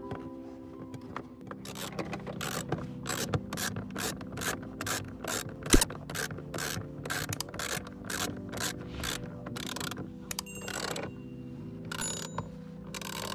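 Hand socket ratchet clicking in quick repeated strokes, about two to three a second, as it turns a small bolt on a truck dashboard's heater-core access cover. One sharp knock about halfway through is the loudest sound.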